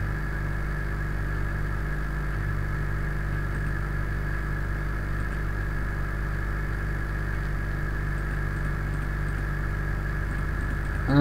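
Steady low electrical hum with a faint hiss: the recording's background noise.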